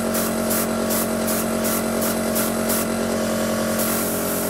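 Airbrush compressor running with a steady hum, under the hiss of a Badger 200 single-action airbrush spraying. The hiss pulses about three times a second, then turns steadier near the end.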